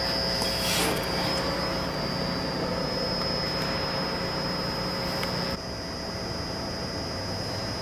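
Steady mechanical hum of an ice rink's machinery with a thin high whine over it, and a short scrape about a second in. The hum drops suddenly in level about five and a half seconds in.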